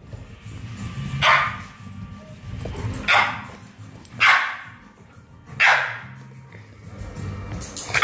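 A dog barking four times, loud sharp barks spaced about one to two seconds apart.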